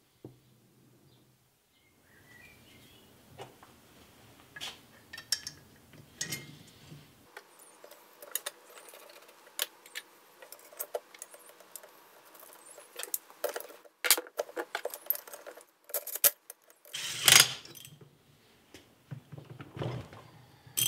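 Scattered metal clinks and clicks of a socket ratchet, holding bar and bolts on a Land Rover Series 3 differential's pinion flange as the pinion nut is worked loose. A louder burst of noise about a second long comes near the end.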